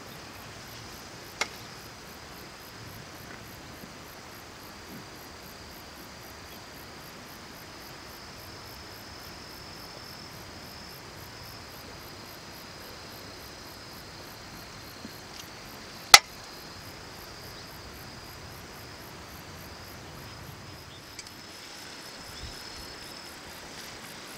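Insects trilling steadily in a high, continuous chorus over faint outdoor ambience. There is a small click about a second and a half in and a sharp, louder click about 16 seconds in.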